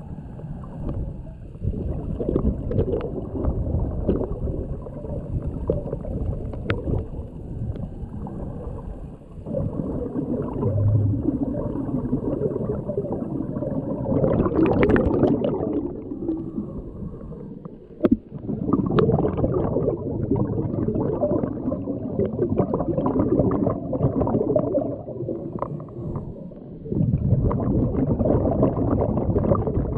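Underwater rumble and gurgling of scuba divers' exhaled air bubbles. It swells in waves with short lulls, and a louder, brighter bubbling comes about halfway through.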